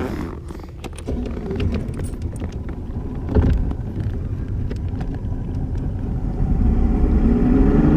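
Bass boat's outboard motor running under way, with a single knock about three and a half seconds in, then the engine throttling up near the end, its pitch and loudness rising.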